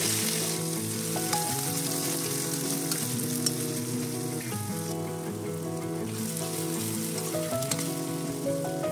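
Food sizzling steadily as it fries in a hot pan, with background music playing over it.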